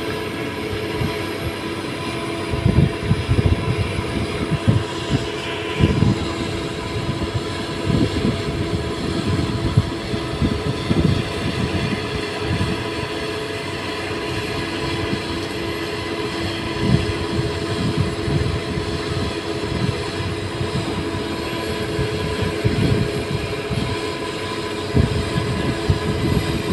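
Doosan DX225LCA crawler excavator working: its diesel engine and hydraulics run with a steady hum and a held whine over it. The bucket is pressing bamboo stakes down into soft peat ground, and irregular low thuds and knocks come every second or two.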